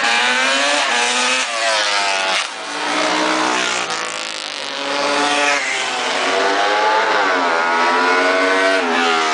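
Racing motorcycle engines at full throttle passing by close to the track edge, their pitch climbing and falling again and again.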